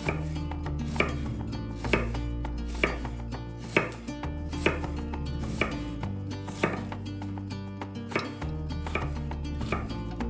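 Knife chopping vegetables on a cutting board, a steady cut about once a second.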